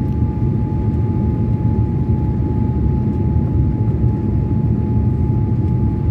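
Airliner cabin noise heard at a window seat over the wing during the descent to land: a steady, unbroken low rumble of engines and rushing air, with a thin steady whine running through it.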